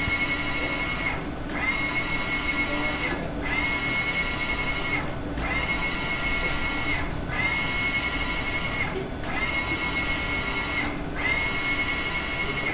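Wide-format printer's print-head carriage sweeping back and forth over a roll of sticker media. Each pass is a steady motor whine lasting about a second and a half, broken by a short pause as the carriage reverses, so the pattern repeats about every two seconds.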